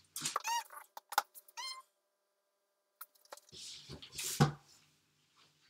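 A few short, high squeaks, then after a pause rustling and a soft thump about four seconds in as a book is handled and pulled from a low shelf of a bookcase.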